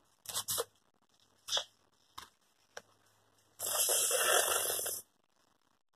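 Handmade paper-and-tape toy gun being handled and worked: several short paper rustles and taps, then a louder rustling scrape lasting over a second.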